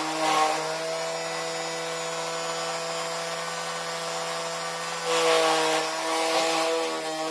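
Small battery-powered DC motor running steadily at high speed with a high whine, spinning a container that holds a wet cloth. A louder rushing noise rises over it about five seconds in.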